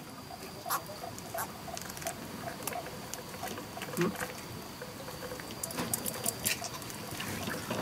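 Light, irregular clicks, taps and small splashes as hands work at the water's surface over the side of a small boat, over a faint steady high tone.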